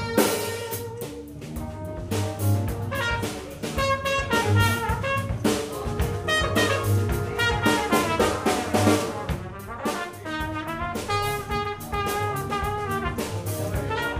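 Live jazz band playing: a trumpet plays a melody line in short phrases over a drum kit groove and electric bass.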